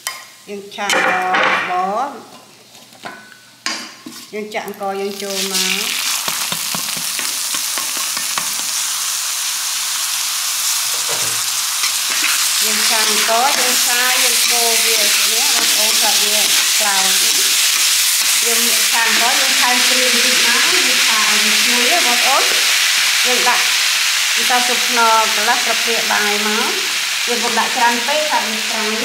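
Garlic and rice frying in hot oil in a metal wok: a loud, steady sizzle starts about five or six seconds in, with a metal spatula scraping and stirring against the wok.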